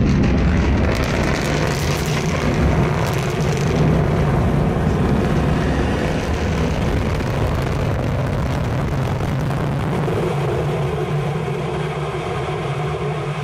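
SpaceX Falcon booster's Merlin rocket engine firing in its landing burn: a loud, steady rocket noise, crackling for the first few seconds and easing a little near the end.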